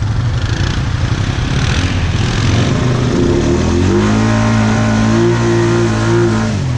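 ATV engine running on a mud trail, revving up about three seconds in and holding at steady high revs, then dropping back near the end.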